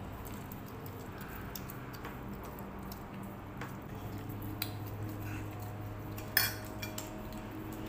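Tableware clattering at a meal: scattered small clicks of plates and cutlery, then one sharp clink about six and a half seconds in, over a steady low hum.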